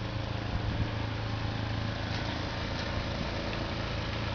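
An engine running steadily, a constant low hum with a hiss of noise over it.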